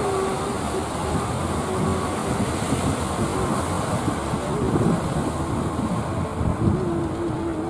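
Engine of a wooden fishing boat running steadily as it motors through the water, mixed with the rush of its bow wave.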